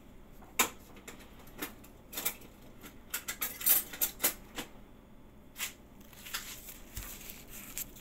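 Irregular clicks, taps and clatters of kitchen utensils and small items being handled, with a quick run of them a little past halfway.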